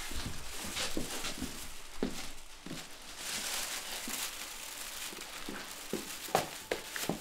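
Thin plastic bag rustling and crinkling as it is handled and pulled open, with a couple of sharp knocks near the end.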